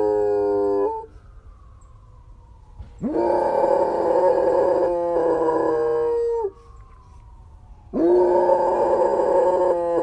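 German Shepherd howling in long drawn-out howls. One howl ends about a second in, a full one runs from about three to six and a half seconds, and another begins near the end. Each starts with a rising swoop and slides down as it fades, with a faint falling tone in the gaps between them.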